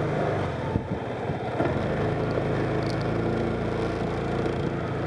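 Motorcycle engine running at a steady low speed as the bike rolls slowly along a paved road, with a couple of light knocks in the first two seconds.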